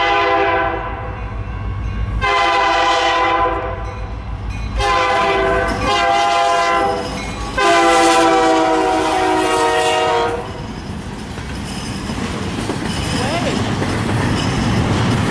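CN freight locomotive's multi-note air horn blowing a chord in long blasts: one ending under a second in, then three more, the last about three seconds long. After the horn stops, the slow-moving train rumbles past with wheels clacking on the rails.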